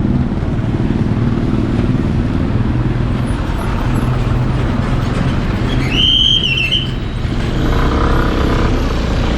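Motor scooter riding along a road, heard from the pillion seat: a steady low engine and road rumble. A short high-pitched beep sounds about six seconds in.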